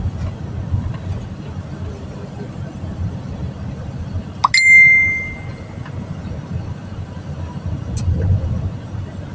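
Steady low rumble of a moving vehicle's road and engine noise, heard from inside. About four and a half seconds in, a single bright bell-like ding rings out and fades over about a second.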